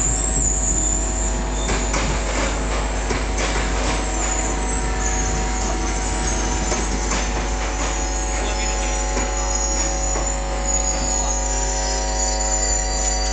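Passenger train coaches rolling slowly into the station, with short knocks from the wheels and a high wheel squeal in the first few seconds, over a steady hum.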